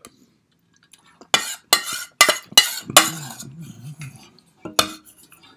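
Metal utensil scraping and clinking against a stainless steel saucepan: a quick run of five clatters, then one more about two seconds later.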